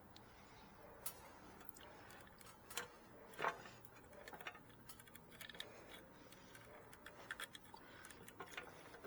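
Faint, scattered small clicks and taps of stiff electrical wires and a large ground wire nut being pushed into a cramped electrical box, with one louder knock about three and a half seconds in and the clicks coming more often in the second half.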